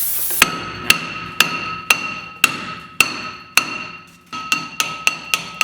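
Hammer blows on a stuck brake rotor of an NB Mazda Miata, about a dozen strikes with a bright metallic ring after each. They come roughly two a second, pause briefly, then come faster near the end as the rotor is knocked loose from the hub after penetrating oil.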